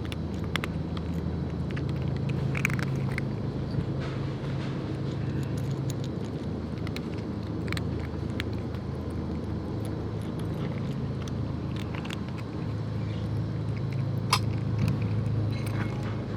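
A motor vehicle's engine runs steadily as a low rumble, its pitch shifting a little a couple of times. Scattered light clicks and taps sound over it, one sharper tick near the end.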